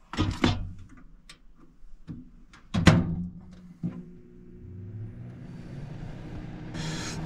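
A few sharp knocks and thuds, the loudest about three seconds in, then a steady low hum with a hiss slowly building under it.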